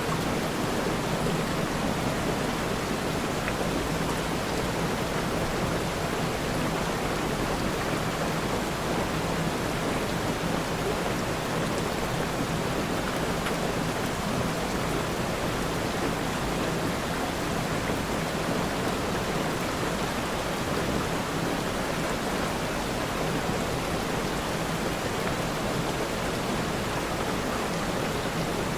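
Steady rainfall, a dense, even hiss of rain with no breaks or distinct drops standing out.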